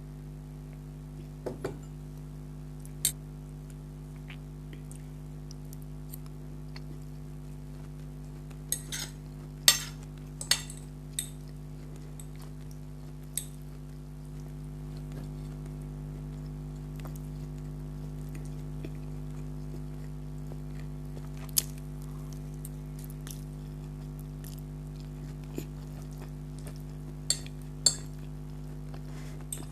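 Cutlery clinking and scraping against a plate of spaghetti while eating: scattered sharp clinks, bunched together about a third of the way in and again near the end. Under them runs a steady low hum.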